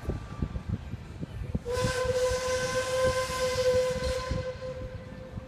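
Lunk single-chime steam whistle on the locomotive Myron H giving one long blast of a single steady note with a loud hiss of steam. It starts about two seconds in and fades out near the end. Regular low thumps, about three a second, run underneath.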